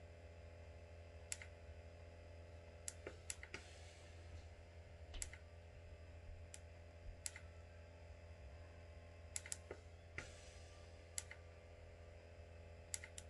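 Near silence: a low steady room hum, broken by a dozen or so faint, irregular small clicks and two soft brief swishes, about three and a half and ten seconds in.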